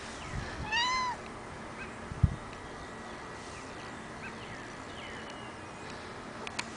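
A Ragdoll kitten meows once, a short call that rises and falls in pitch, about a second in. A dull thump follows about a second later.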